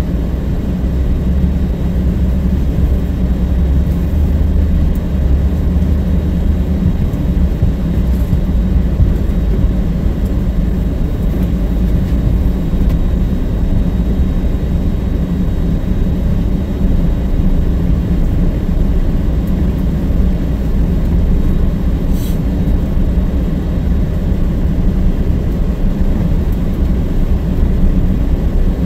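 GMC Yukon SUV driving slowly along a snow-covered track, heard from inside the cab: a steady low rumble of engine and road noise.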